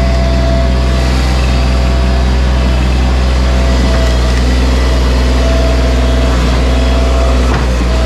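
Bobcat MT100 stand-on mini track loader's diesel engine running steadily, heard close up from the operator's platform.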